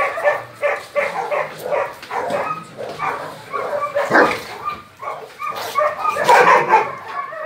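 A pack of dogs, German shepherds among them, barking in quick, overlapping barks, several a second, growing denser and louder near the end.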